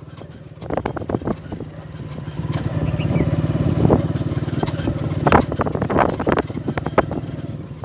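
Motorcycle engine running as the bike is ridden along a bumpy dirt track, growing louder about two seconds in, with sharp knocks and rattles from the bumps.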